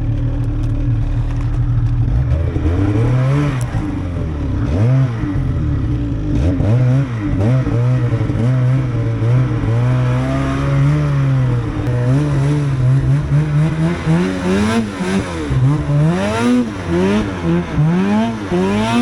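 Two-stroke snowmobile engine running steadily, then revved up and down again and again, the throttle blips coming quicker near the end.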